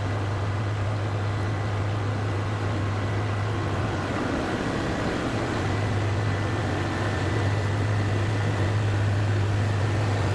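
Detroit V8 supercharged diesel generator running at a steady low drone, now loaded by the induction furnace it powers, with a faint steady high whine over it. It grows slightly louder over the second half.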